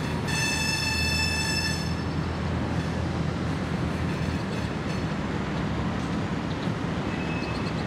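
Freight train of loaded rock hopper cars rolling by with a steady low rumble. For about the first two seconds a high, steady squeal sits over the rumble.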